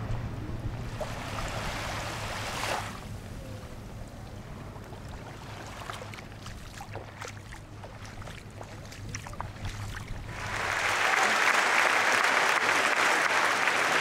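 A low steady hum, then about ten seconds in a large stadium audience breaks into loud, sustained applause.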